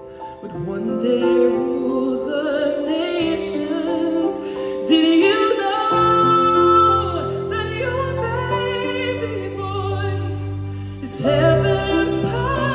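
A solo male singer sings a slow, held melody with vibrato over a live orchestra with strings. Deeper orchestral notes come in about six seconds in, and the music swells again near the end.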